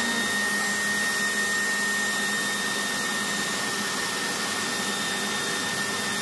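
Leaf blower running steadily at full speed, blowing air through a home-built turbojet's turbocharger and combustion liner in a cold airflow test with no fuel burning. A steady high whine sits over the rush of air.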